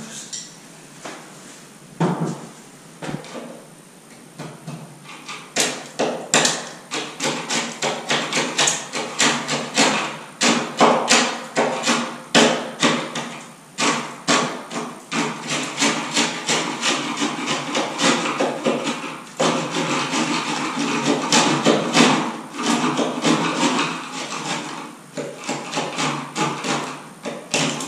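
Flat screwdriver chipping and scraping away textured ceiling at the edge of an electrical box: rapid, irregular taps and scrapes, a few at first, then several a second from about five seconds in.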